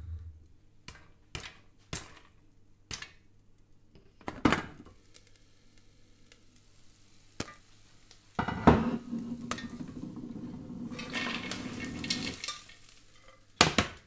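Last few popcorn kernels popping one at a time inside a covered pot, about six pops spread over several seconds: the popping has slowed, so the batch is nearly done. About eight seconds in, the glass lid comes off the metal pot with a clatter, followed by the rustle of the popped corn and a sharp clank near the end.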